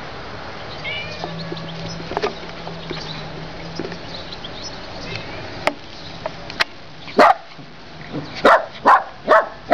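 Small Bolognese dog barking: a quick run of short barks, about two or three a second, starting some seven seconds in. Before that, two sharp clicks.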